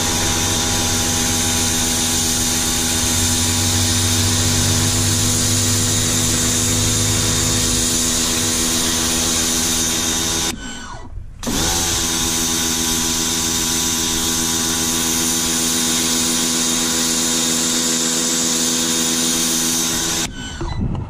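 Michelin MPX 14E 1400 W electric pressure washer running, its motor and pump humming steadily under the hiss of the water jet sprayed onto a strip of carpet. It cuts out for about a second halfway through, spins back up, and stops again near the end.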